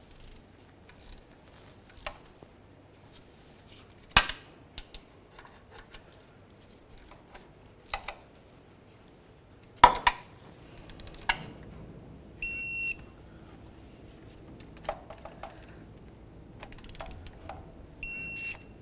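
Scattered metal clicks and clinks of wrench and socket work on the tensioner mounting bolts, then a digital torque wrench beeping twice, each a half-second steady tone, signalling that the bolt has reached its set torque of 18 foot-pounds.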